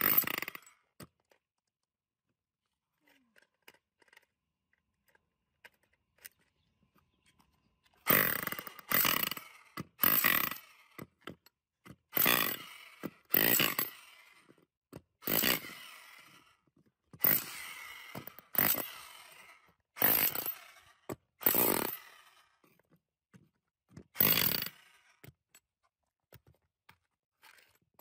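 TNT electric hammer drill with a chisel bit hammering a brick in about a dozen short bursts, each under a second long, breaking it into chunks. A single burst sounds at the very start, then near silence for several seconds before the bursts begin about eight seconds in.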